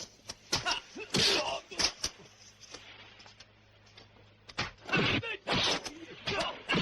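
Kung fu fight sound effects: sharp punch and kick impacts with the fighters' shouts and grunts. There is a quieter stretch in the middle.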